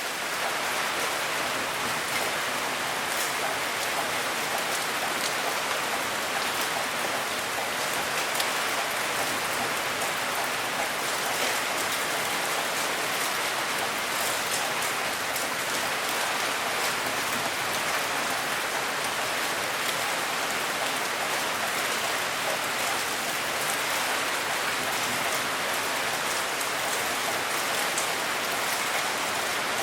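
Steady rain falling, an even hiss with the patter of many small drops and no change in strength.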